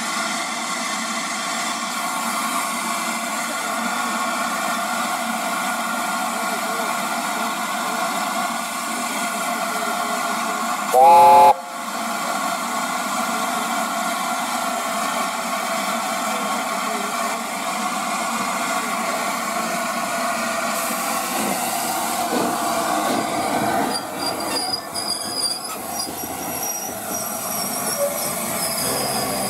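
LNER A4 steam locomotive 60007 Sir Nigel Gresley giving one short, loud blast of its chime whistle about eleven seconds in, over a steady hiss of steam from the engine.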